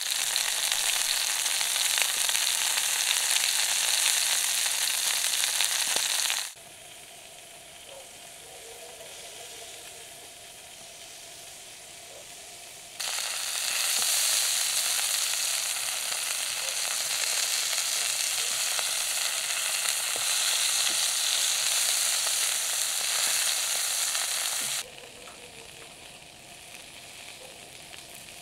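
Sausages sizzling in a frying pan, a steady loud hiss that stops abruptly after about six seconds, returns about thirteen seconds in and cuts off again near the end, with a much softer background in between.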